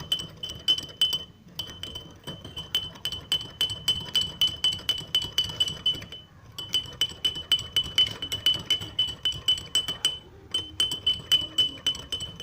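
Metal spoon stirring a drink in a glass, clinking against the glass wall about five times a second with a bright ringing tone; the stirring stops briefly three times.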